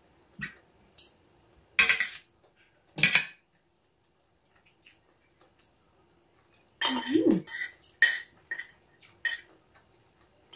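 Metal fork and spoon clinking and scraping against a large metal serving platter in scattered strikes: two loud clanks in the first few seconds, then a quick run of clinks from about seven to nine seconds in.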